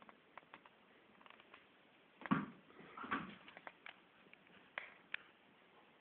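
Border collie's claws clicking and tapping on a tiled floor as it moves about, with two louder thumps about two and three seconds in.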